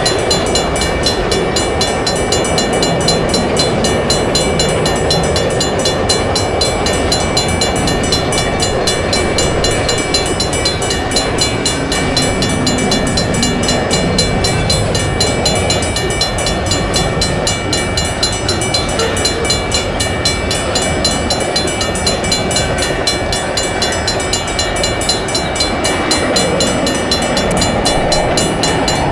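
Railroad crossing bells ringing steadily over the continuous rumble of a passing train.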